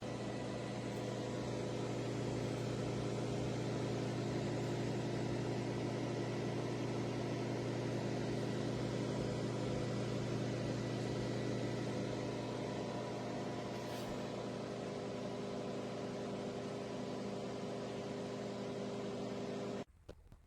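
Steady hum of a running appliance's motor and fan, the Ninja Flip air fryer oven in operation. It cuts off abruptly near the end.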